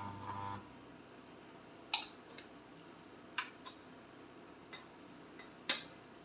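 Homemade spot welder's microwave-oven transformer buzzing under load, cutting off about half a second in. Then come about six short, sharp clicks and taps spread over the rest of the time.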